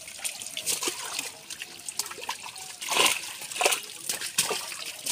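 Shallow water splashing and trickling as hands stir through a crowded heap of small live mola fish, with irregular splashes that are loudest about three seconds in.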